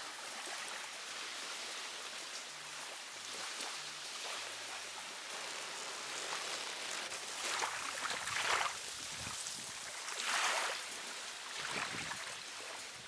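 Small sea waves washing on the shore, a steady hiss with two louder washes surging in and falling back in the second half.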